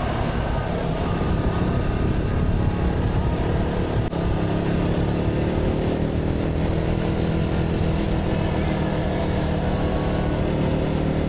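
Motorcycle engine running while riding, with wind rushing over the microphone. There is a brief dropout about four seconds in, after which the engine note climbs gradually.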